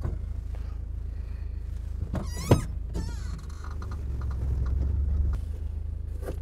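UAZ off-road vehicle's engine running with a steady low rumble that swells for about a second between four and five seconds in. About two and a half seconds in comes a brief, loud, warbling high-pitched sound.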